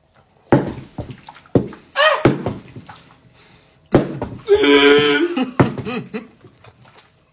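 Men's wordless excited shouts and exclamations, including a short rising-and-falling cry about two seconds in and a loud held yell near the middle, broken up by a few sudden sharp knocks.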